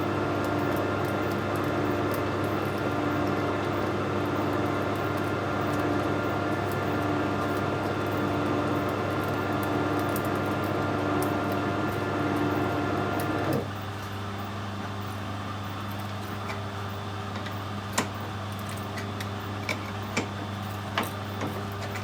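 Metal lathe running steadily while a die cuts a thread on a stainless steel rod. About 13 seconds in, the machine's tones cut out suddenly, leaving a lower steady hum and a few light clicks.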